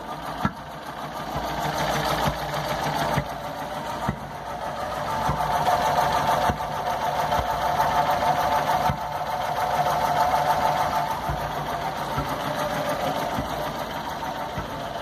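Freshly rebuilt VW EA111 1.0 four-cylinder petrol engine running rough on its first start, with scattered sharp pops. These are misfire shots ('tiros'), which the mechanic suspects come from spark plug wires fitted in the wrong order.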